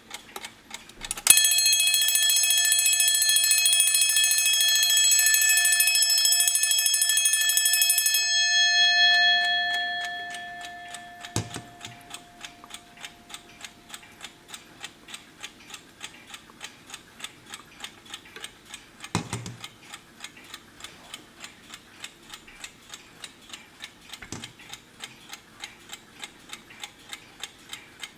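Vintage Wehrle mechanical alarm clock ticking, then its alarm bell rings loudly and continuously for about seven seconds. The ringing stops abruptly and the bell's tone fades out over several seconds while the steady ticking carries on, broken by a few single louder knocks from the mechanism.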